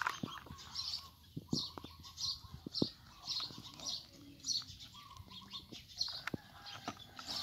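A small plastic toy truck and a clear plastic wrapping bag being handled: crinkling and irregular small clicks and knocks of plastic. Short high chirps repeat throughout, about one to two a second.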